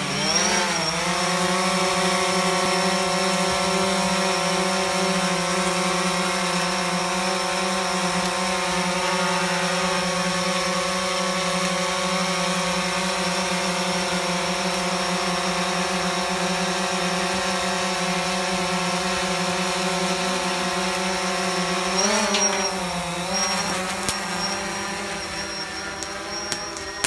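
DJI Phantom quadcopter's propellers spinning up and then whining steadily in a hover, a stack of steady tones. About 22 seconds in the pitch rises and then falls as the drone changes thrust, and the sound fades near the end as it climbs away.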